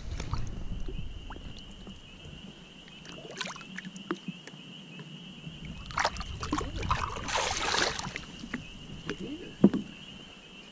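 Water splashing and lapping at a boat's side as a pike is held in the lake by hand and released, with a louder splash about seven seconds in.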